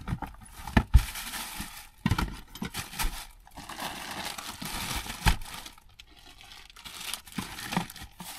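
Plastic bags and packaging crinkling as items are rummaged through in a plastic storage tote, with several short knocks of things being set down or shifted.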